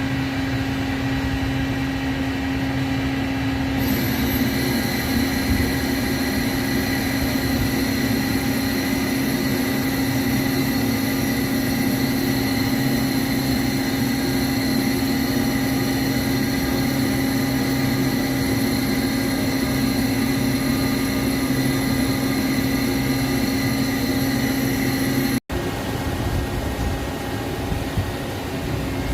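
A Kaoming KMC-423RF five-face machining center running with a steady mechanical hum and several steady whining tones. Higher whines join about four seconds in.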